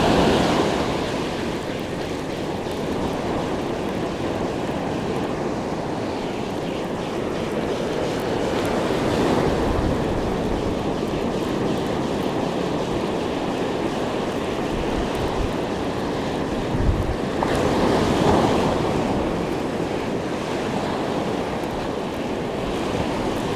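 Ocean surf breaking and washing up the shore, with wind buffeting the microphone. The wash swells louder about ten seconds in and again around eighteen seconds in.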